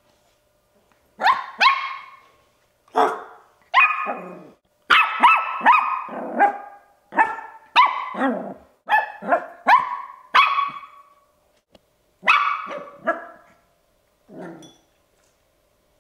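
Bichon Frise puppy barking: a long run of short, high-pitched barks, each dropping in pitch, coming in quick clusters with a brief pause about eleven seconds in. These are attention barks from a puppy wanting to play.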